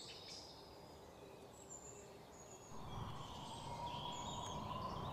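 Faint outdoor ambience: small birds chirping now and then over a low background noise, which grows louder about three seconds in, bringing a steady hum with it.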